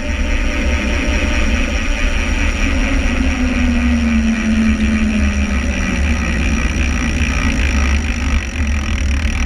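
Wind rushing over the microphone of a camera on a mountain bike descending a road at speed, a steady heavy rumble with tyre noise. Around the middle a humming tone slides down in pitch.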